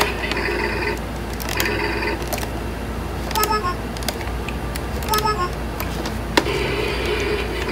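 Electronic sounds from a battery-powered Chicco toy car as its buttons are pressed: short patches of recorded sound and two brief beeps, with plastic button clicks. The recorded sound is the toy's engine failing to start.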